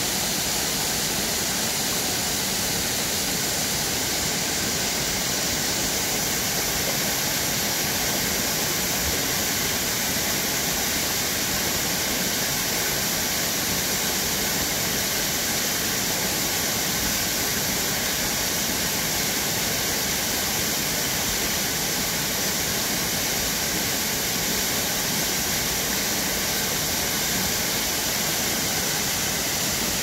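Small waterfall pouring into a rocky pool: a steady, unbroken rush of falling water.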